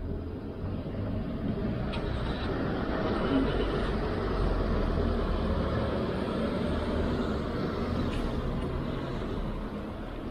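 Road traffic: a motor vehicle passing close by on a street, its tyre and engine noise swelling a few seconds in and then easing off.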